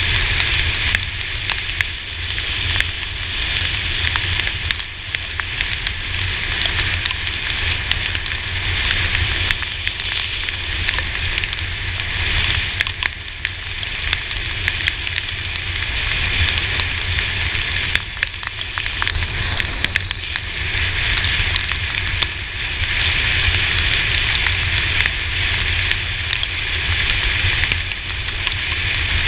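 Rain and road spray crackling against a GoPro Hero4 camera housing while riding a Yamaha T-Max 530 maxi-scooter on a wet road, over a steady hiss and a low rumble.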